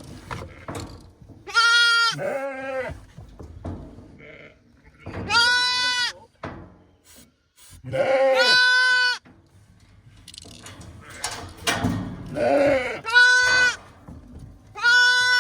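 Sheep bleating: about seven separate calls, mostly high-pitched lamb bleats with a couple of lower ones mixed in.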